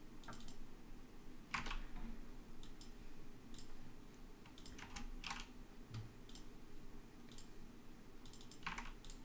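Computer keyboard typing: faint, irregular keystrokes in short runs with pauses between them.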